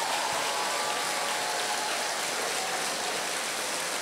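Large audience applauding, a steady clatter of many hands clapping at once.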